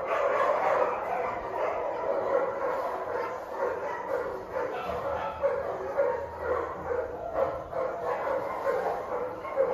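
Cat mewing over and over in short pitched calls, about two a second.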